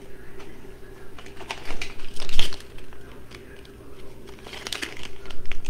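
Wreath-making materials being handled: irregular crinkling, light clicks and taps, busiest about two seconds in and again near the end.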